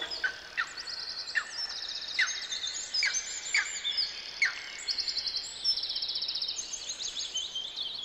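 Small songbirds singing over a faint steady hiss. Rapid high trills repeat throughout, and short downward-sliding notes come about seven times in the first half or so.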